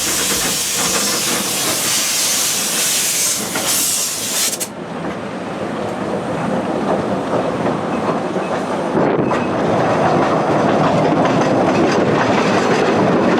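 Small narrow-gauge steam train running. A loud hiss of steam for the first four and a half seconds or so, then the rattle and clatter of the wheels and carriages, slowly getting louder.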